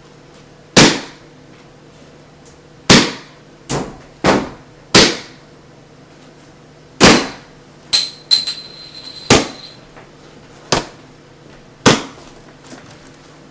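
A series of about eleven sharp bangs or knocks at irregular spacing, each loud and short with a brief decay. A high ringing tone sounds for about a second in the middle.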